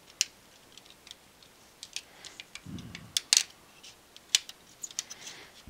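Scattered small clicks and light scrapes of a pry tool working a ribbon and cover loose inside an opened MacBook Pro, with a sharp double click a little over three seconds in.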